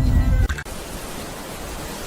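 Background music that cuts off about half a second in, giving way to a steady, even hiss.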